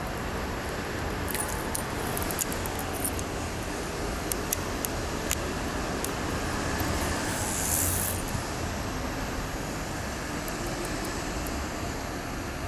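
Steady city traffic noise, with scattered light clicks in the first half and a short hiss about eight seconds in.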